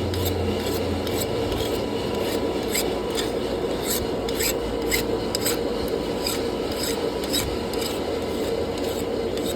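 A lit knife-making forge running: a steady rushing hiss with a low hum underneath, and scattered light ticks and clicks.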